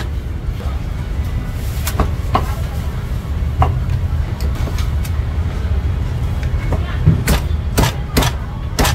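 A Chinese cleaver chops roast goose on an end-grain wooden chopping block, striking with sharp knocks. There are a couple of chops about two seconds in, then four quick chops near the end, over a steady low rumble.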